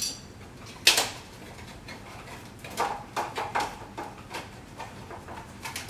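Plastic clicks and knocks from the filter clips and housing of an IQAir HealthPro Plus air purifier being handled as the old filter is freed: one sharp click about a second in, then a run of lighter clicks and knocks a couple of seconds later.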